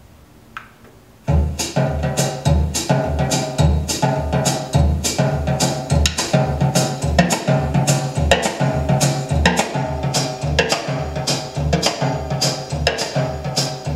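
After a short quiet pause with one click, drum-led music starts abruptly about a second in, with a steady kick-and-snare beat and bass, played back through a JBL SA600 stereo amplifier.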